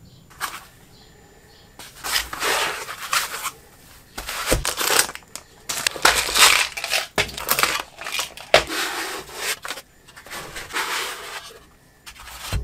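Foam packing trays and plastic bags of engine-kit parts being lifted out of a wooden box, in irregular bursts of rustling and scraping with a few sharp knocks as trays are set down.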